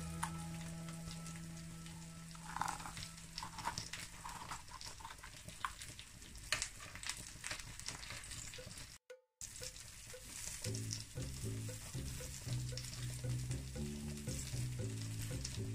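Chicken kebab patties and sliced vegetables sizzling steadily in oil on a hot stovetop griddle, with small clicks and taps as pieces are laid down. The sound cuts out briefly about nine seconds in.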